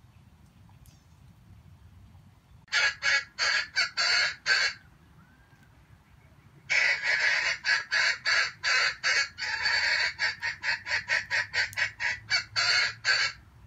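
Junglefowl clucking in fast, loud runs of about three or four calls a second. A short bout of about two seconds comes first, then a longer one of about six seconds.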